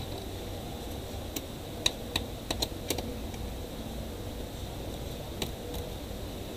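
Sharp plastic clicks and taps from a laptop hinge and its plastic casing being fitted with a small hand tool: a quick run of about eight clicks in the second and third seconds, then one more near the end.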